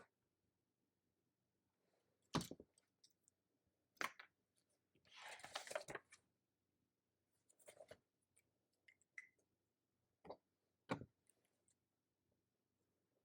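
Sparse taps and clicks of study-desk work, a few sharp knocks spread out with faint ticks between and a short rustle about five seconds in.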